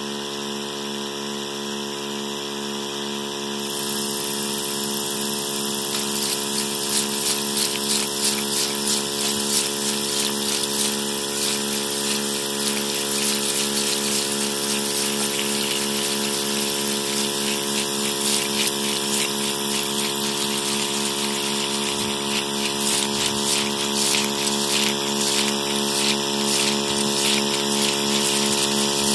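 Steady electronic drone of many held, evenly stacked tones with a pulsing low note, under a bright hiss. Dense crackling clicks set in about six seconds in.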